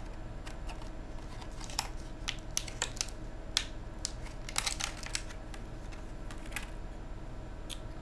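Clear plastic clamshell pack being pried open by hand to free a laptop memory module: irregular sharp clicks and crackles, bunched in the middle, over a faint steady hum.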